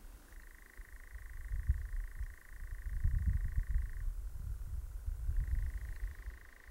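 European nightjar churring: one even, steady trill that breaks off about four seconds in and starts again just over a second later. Under it runs an uneven low rumble, the loudest sound.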